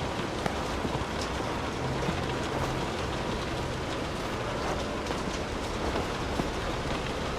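Steady rain falling: an even hiss with many small, sharper drop taps scattered through it, over a low rumble.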